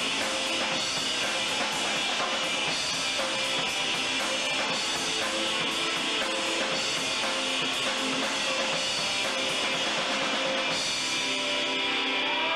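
A rock band playing live, with a drum kit with cymbals and an electric guitar.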